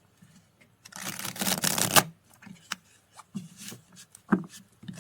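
Tarot cards being handled: a riffle or shuffle lasting about a second, then scattered light taps and flicks as cards are laid down or turned over.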